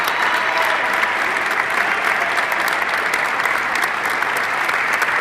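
Audience applauding steadily, a dense, even mass of clapping.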